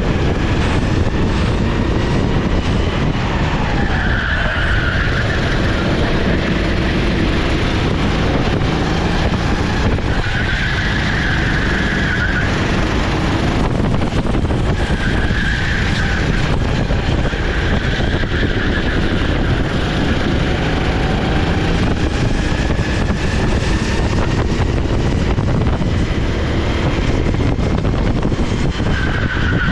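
Sodi SR4 390cc rental kart's single-cylinder four-stroke engine running at speed under dense, steady rumble and noise. Tyres squeal briefly about four times as the kart goes through corners.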